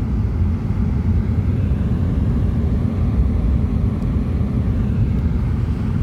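Steady low rumble of a moving car's tyres and engine, heard from inside the cabin.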